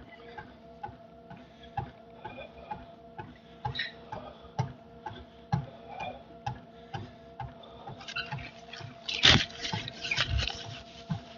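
Footfalls on a treadmill belt, about two a second, over the treadmill's steady motor hum. From about eight seconds in, a towel rubs loudly against a face.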